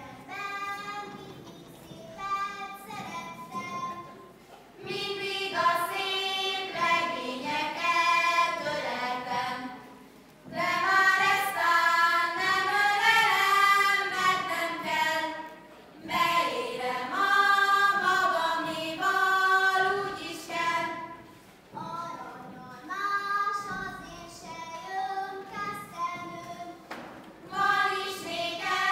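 A group of girls singing a Sárköz Hungarian folk song together, in phrases broken by short pauses for breath.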